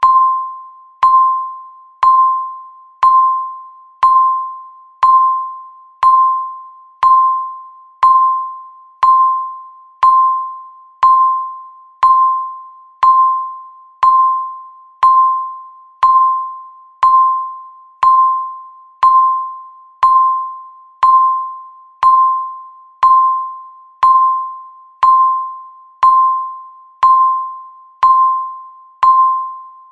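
Countdown timer beeping once a second: a short electronic tone of about 1 kHz, sharp at the start and fading away, the same every time.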